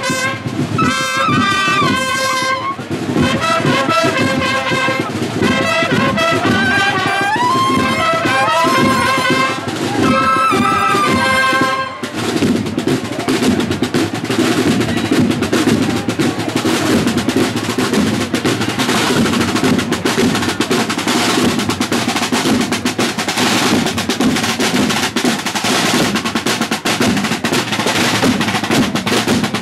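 Marching band of brass horns and snare drums playing a march melody. About twelve seconds in the brass stops and the drums play on alone in a steady marching rhythm.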